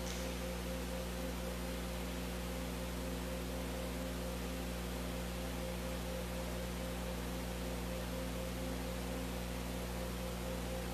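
Steady hiss with a low electrical hum from an open microphone and sound system, with no other sound.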